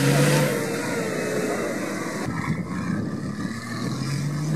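Nissan Patrol GR 4x4 engine revving under load while its wheels spin in wet grass, loudest at the start. About two seconds in the sound changes abruptly, and the engine rises again near the end.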